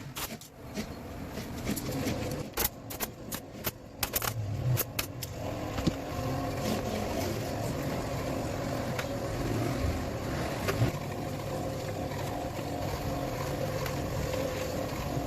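A quick, irregular run of sharp knocks from upholstery tool work in the first five seconds, then a steady mechanical hum with a faint whine.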